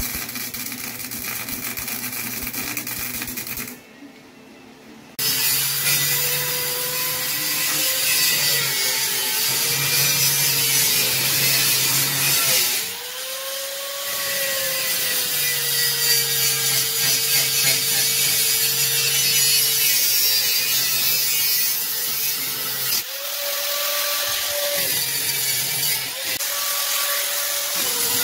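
Handheld angle grinder working steel, its motor whine sagging under load and rising in pitch each time the load comes off, three times.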